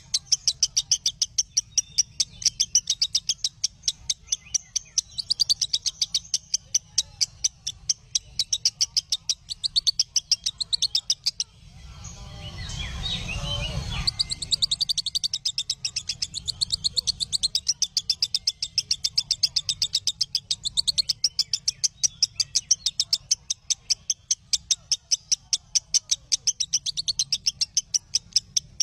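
A bird chirping in a fast, even series of short, sharp, high notes, about four a second. About twelve seconds in, the chirps break off for a couple of seconds while a rushing noise with a low rumble swells up, and then the chirping starts again.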